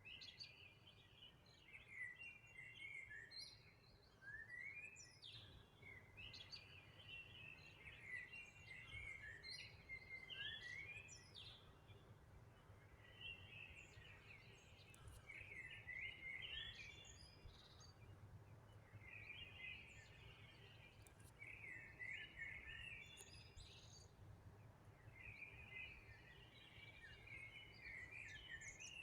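A songbird singing short, quick chirping phrases again and again, a few seconds apart, over a faint low rumble.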